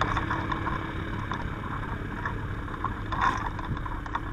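Steady vehicle engine and road rumble with a faint constant hum and scattered light clicks, and a brief louder rush about three seconds in.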